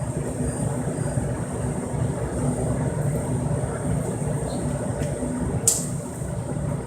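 Steady low rumble of a moving vehicle, with a faint steady whine above it and one sharp click or knock near the end.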